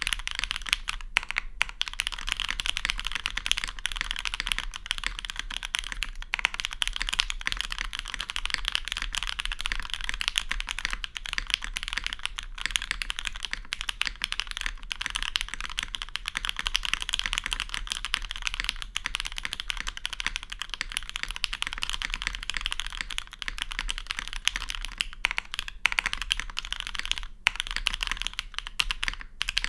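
Fast, continuous typing on a Matrix custom mechanical keyboard fitted with lubed, diamond-polished Hyperglide Cherry MX Black linear switches and GMK keycaps. It is a rapid, unbroken stream of keystroke clacks, with a few short pauses near the end.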